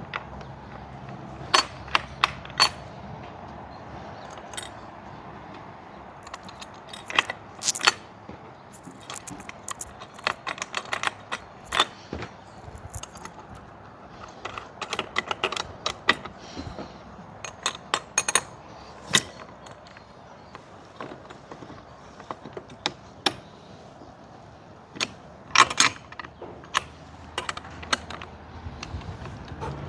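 Irregular metallic clicks, taps and clinks of a quick-release awning bracket's metal parts being handled and fitted, coming in clusters with short pauses.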